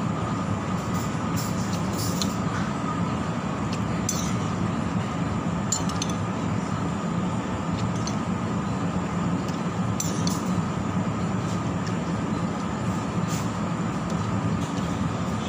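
Metal cutlery clinking against a ceramic soup bowl a few times while eating, over a steady low hum.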